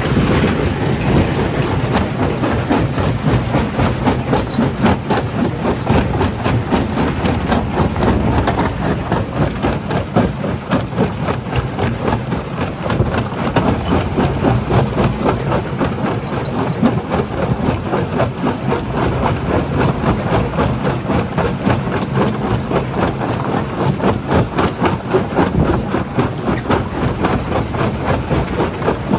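Stone crushing plant with a primary jaw crusher running under load: a steady heavy engine hum overlaid with continuous rapid, irregular knocking and clattering of rock.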